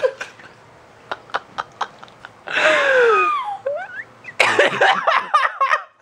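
People laughing: short giggles at first, then a high falling cry about three seconds in, and loud hearty laughter for the last second and a half.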